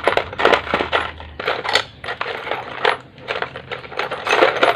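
Loose metal engine parts, such as bolts, washers and small gears, clinking and jangling irregularly as a hand rummages through them in a plastic basin.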